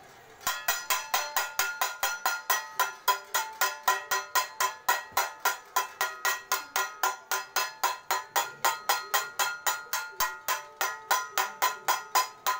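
Metal plate struck over and over at a quick, even beat, about four or five ringing clangs a second, beginning about half a second in.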